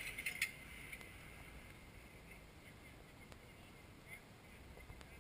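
A Jeep's engine running faintly at low speed as it crawls over rocks, a low distant rumble, with a few sharp crunching clicks in the first half-second that fit footsteps on gravel.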